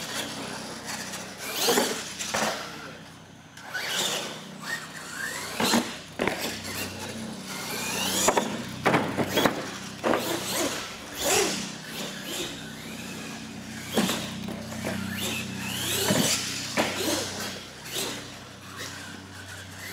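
Radio-controlled monster truck driving hard on a smooth concrete floor: its motor whining up and down in pitch and its tyres squealing, with repeated sharp knocks and clatters from landings and tumbles.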